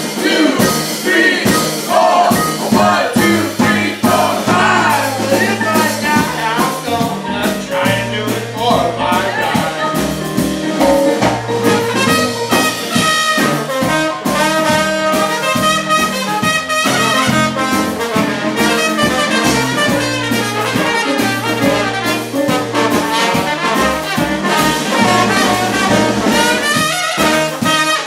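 Live band playing a swinging jazz-blues number, with trumpet and trombone to the fore over a stepping bass line and drums.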